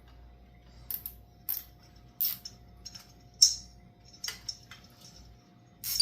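Plastic zip ties being cinched and handled: scattered sharp clicks and short rasps, the loudest about three and a half seconds in.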